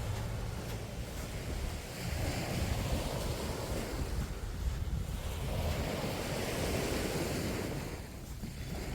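Sea waves washing onto a sandy beach, swelling and ebbing a couple of times, with wind rumbling on the microphone.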